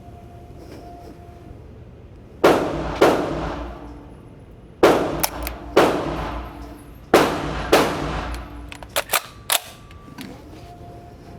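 Gunshots in three pairs, each pair about half a second apart, every shot followed by a long echoing decay. A few smaller sharp clicks follow near the end.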